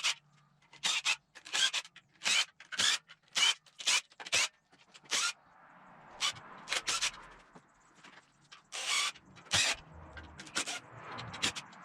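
Hand ratchet wrench working the oil pan bolts off a 5.3 LS V8: a run of short, even ratcheting strokes about two a second, then a few slower, scattered strokes near the end.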